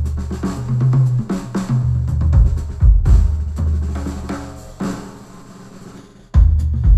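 Instrumental music with a drum kit and heavy bass, played through headphones and picked up by microphones. The beat thins out and fades about five seconds in, then the full drums and bass come back loudly near the end.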